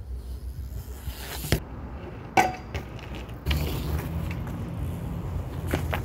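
BMX bike hitting concrete and tarmac: a sharp impact about a second and a half in, a louder metallic clank with a short ring a second later, and another hit near the end, over a steady low rumble of wind on the microphone.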